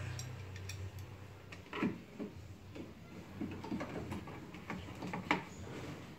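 Hand wrench tightening the tail lamp's 10 mm mounting bolts: a string of irregular small clicks and knocks, a few a second. A low hum fades out about a second in.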